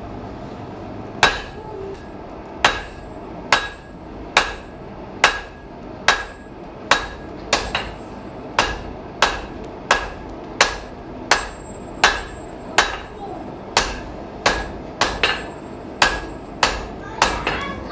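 Blacksmith's hammer striking iron on an anvil while forging, a steady series of sharp blows with a short metallic ring, about one and a half a second, getting a little quicker near the end.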